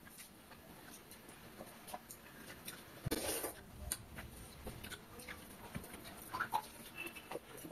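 Quiet sounds of eating by hand: fingers working rice soaked in water in steel bowls, chewing and small mouth sounds, with scattered light clicks. A brief louder wet noise comes about three seconds in.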